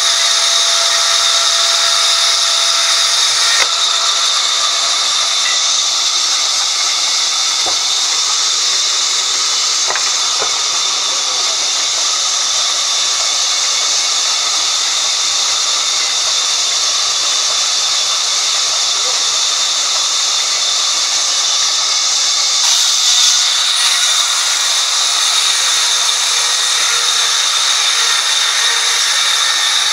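Sawmill band saw cutting lengthwise through a log: a loud, steady hissing whine of the blade running through the wood.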